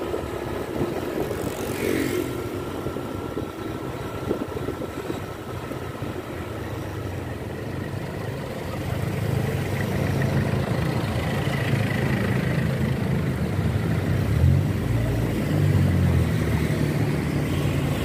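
Motorcycle engine running as it rides through town traffic, other vehicles passing close by. The engine rumble grows louder about halfway through.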